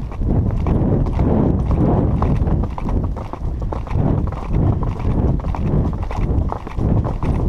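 Hoofbeats of a pinto horse moving along a dirt woodland trail, repeated knocks at a steady pace over a constant low rumble.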